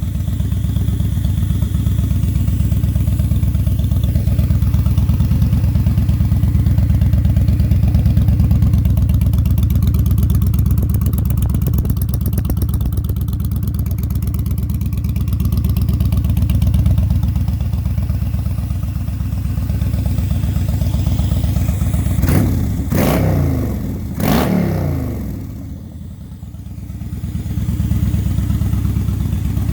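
Yamaha V-Star 1300's V-twin idling steadily through Cobra Dragster exhausts fitted with Cobra Quiet Baffles, warmed up. Near the end the throttle is blipped twice, the revs rising and falling quickly each time, and the idle dips briefly before settling again.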